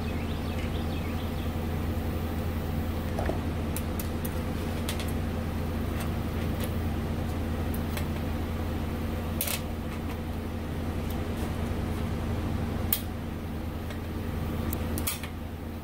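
Steady low mechanical hum, like a shop fan or motor, under a few light clicks and taps of a metal brake line being bent by hand and moved against the workbench.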